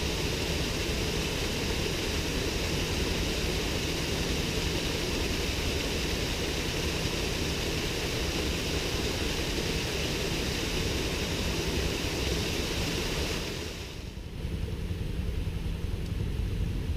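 Steady rush of a small waterfall and river water. Near the end it cuts off, giving way to a quieter open-air ambience.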